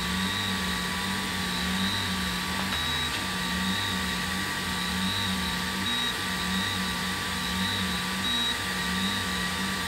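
EleksMaker EleksLaser-A3 Pro laser engraver running a job, its stepper motors moving the head with a low whine whose pitch rises and falls in repeated arcs as it traces circles, over a steady hum.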